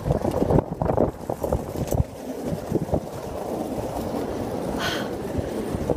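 Wind buffeting a phone's microphone: a low rushing rumble that swells and drops in gusts, strongest in the first couple of seconds.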